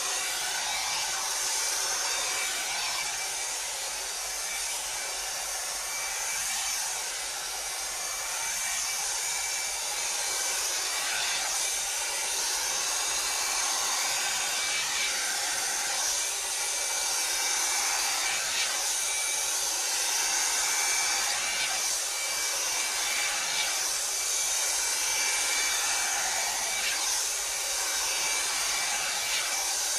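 Electric hot-air styling brush blowing steadily as it is drawn through long hair: an even fan hiss with a thin, steady whine.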